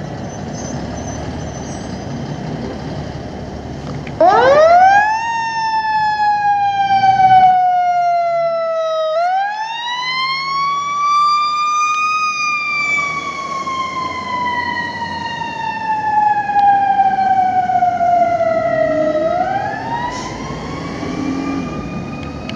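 Federal Signal e-Q2B electronic siren on a fire engine, mimicking a mechanical coaster siren: it winds up sharply about four seconds in, slowly coasts down, winds up again, coasts down for several seconds, and winds up a third time near the end.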